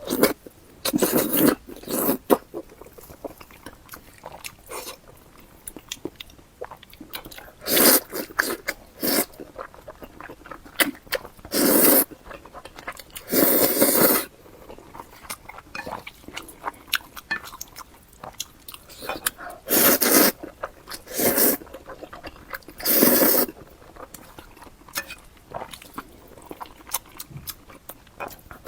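Close-miked eating sounds: bites and chewing, coming in separate bursts of about a second every few seconds.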